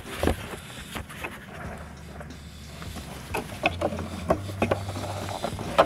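Scattered small clicks and knocks with rustling as hands work the plastic fuel-line and wiring connectors at a VW Golf 5's fuel pump.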